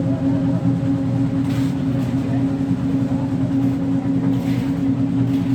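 Engine-driven machine running steadily at constant speed, a continuous low drone with a strong steady hum.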